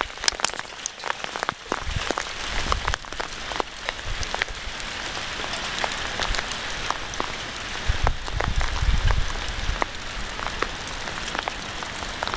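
Hail and rain pelting down in a dense patter, full of sharp ticks of hailstones striking. A low rumble swells up about two seconds in and again around eight seconds in.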